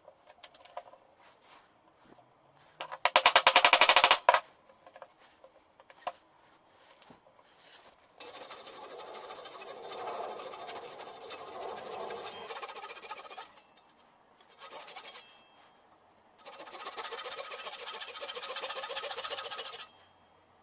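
Hand saw cutting through plywood, in one long stretch of sawing and then a second one near the end. About three seconds in there is a brief, loud, rapid clatter of strikes.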